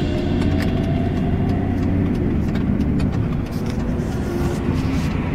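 Car interior sound while driving: the steady low rumble of the engine and road noise heard from inside the cabin.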